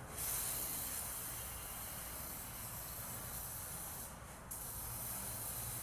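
Aerosol can of oven and grill cleaner spraying in a long steady hiss, breaking off briefly about four seconds in, then spraying again.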